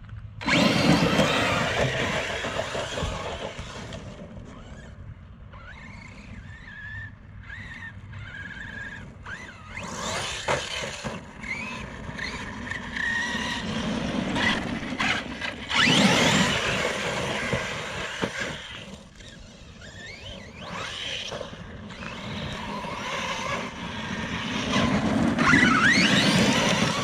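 Arrma Outcast 6S RC truck's brushless motor whining up and down in pitch as the truck accelerates and slows. There are loud bursts of throttle just after the start, about halfway through and again near the end.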